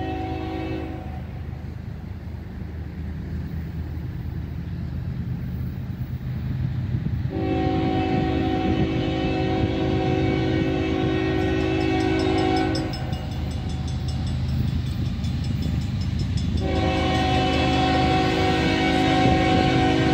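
Approaching diesel freight train: the lead locomotive sounds its multi-note air horn, a short blast, then two long blasts, over a steady low diesel rumble that grows louder as the train nears.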